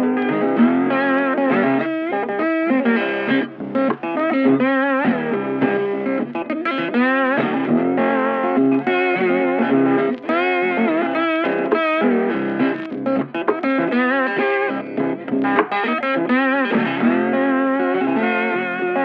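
Background music: a guitar-led instrumental with a bending, vibrato lead line over sustained chords.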